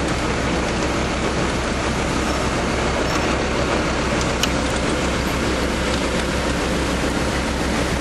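An engine running steadily with an even low rumble, with a few faint metallic ticks about halfway through.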